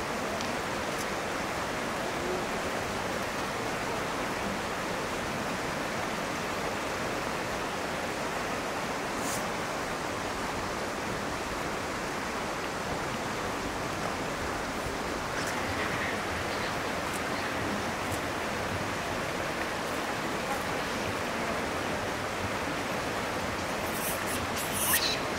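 Steady rushing of flowing water, an even wash of noise with no rhythm. A brief, louder burst of higher-pitched sound comes near the end.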